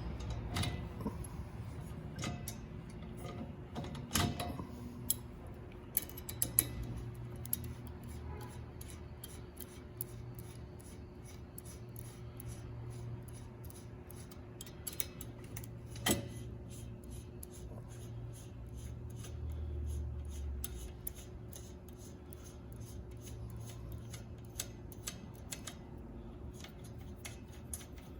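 A 5 mm Allen key working the spine's retaining bolts: a long run of light metallic clicks, about two a second, with a single louder knock partway through, over a steady low hum.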